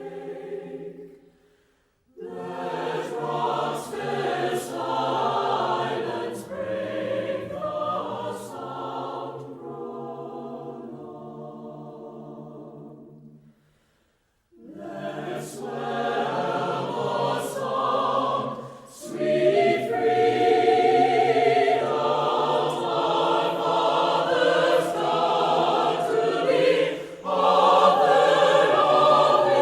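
Background music of a choir singing, breaking off twice briefly and growing louder in the second half.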